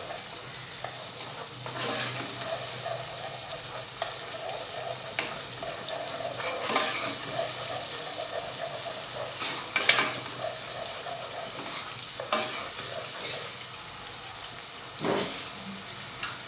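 Raw onion paste sizzling steadily as it fries in hot oil in a nonstick pot, in its first minutes of frying. A steel spoon stirs through it, scraping the pan every second or two.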